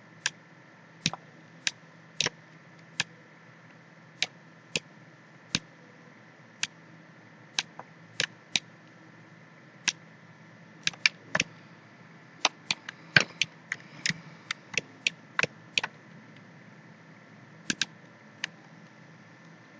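Sharp single clicks of a computer mouse, irregularly spaced, coming faster in a run from about eleven to sixteen seconds in, over a faint steady hum.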